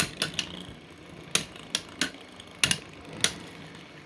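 3D-printed Beyblade spinning tops clashing in a battle stadium: sharp, irregularly spaced clacks, about nine of them, as the tops hit each other and the stadium wall.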